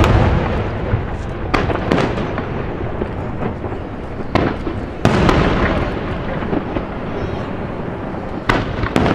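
Aerial fireworks shells bursting: six sharp booms at uneven intervals, the louder ones about a second in, near the middle and near the end, over a continuous crackle and rumble from the display.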